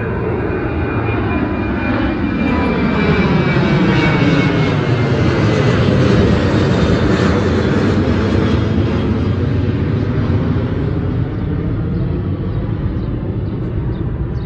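Twin-engine jet airliner climbing out overhead, its jet engines at climb power: a steady rushing noise that swells to its loudest about six seconds in as the plane passes over, then eases. A faint falling whine is heard in the first few seconds.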